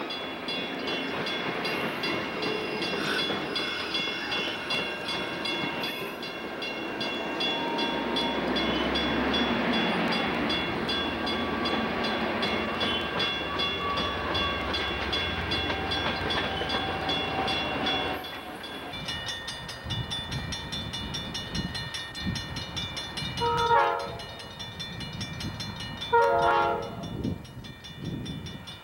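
Amtrak passenger cars rolling past close by, wheels rumbling on the rails with a steady high-pitched squeal. Then, from an approaching passenger locomotive, two short horn blasts about three seconds apart.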